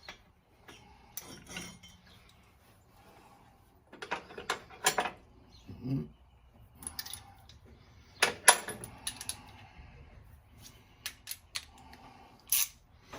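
Metal hand tools clinking and clanking against engine parts in scattered, irregular knocks and taps while pulley bolts are being taken out, the loudest a sharp clank a little past the middle.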